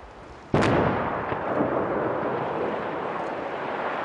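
Demolition explosion at a mountain tunnel entrance: one sudden loud blast about half a second in, followed by a long rumble of collapsing rock and debris that slowly fades.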